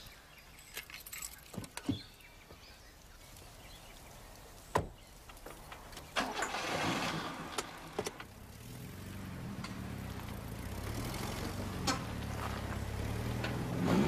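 A few small clicks and knocks, then a car engine starting about six seconds in and running steadily, getting gradually louder, with the pitch beginning to rise as it moves off near the end.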